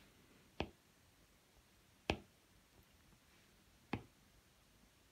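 Apple Pencil tip tapping on the iPad's glass screen three times, single sharp clicks a second and a half to two seconds apart, dabbing on splatter dots.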